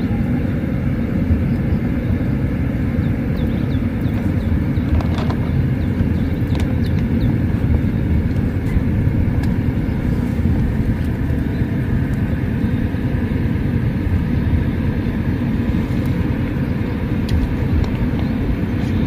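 Steady low rumble with a few faint ticks.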